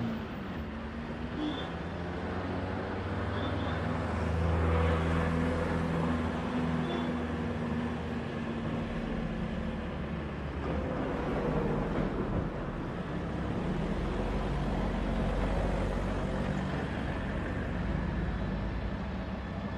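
Street traffic: motor vehicle engines running, their low hum shifting in pitch every few seconds as they pass, over steady road noise.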